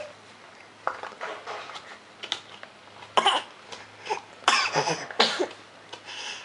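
A person making a string of short, rough, cough-like throat noises, about eight of them at irregular intervals, the loudest in the middle of the stretch.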